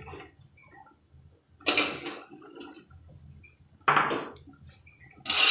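A steel spatula knocking and clattering against a large metal cooking pot, twice: briefly about one and a half seconds in, and again, louder and longer, near four seconds. The pot's boiling water bubbles faintly in between.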